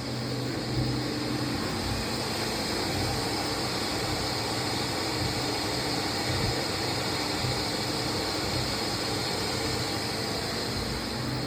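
Kemutec Kek 200EC 200-litre stainless steel ribbon blender running, its 7.5 kW electric drive turning the ribbon agitator with a steady hum and hiss.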